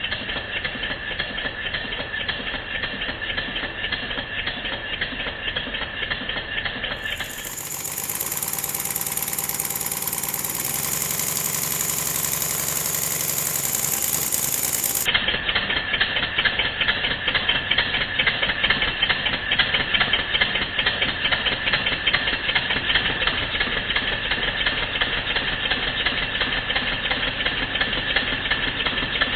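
Stuart Double 10V twin-cylinder model steam engine running steadily on compressed air, a rapid, even chuffing of exhaust beats as it is run in after its rebuild. The sound turns brighter for several seconds about a quarter of the way in.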